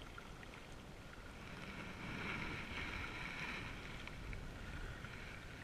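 Steady wind on the microphone with lake water lapping against the rocky shore, swelling slightly about two seconds in.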